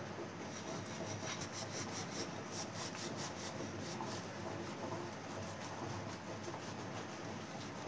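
Steel wool scourer scrubbing a burnt stainless steel teapot lid in rapid, repeated rubbing strokes, scouring off the burnt-on residue.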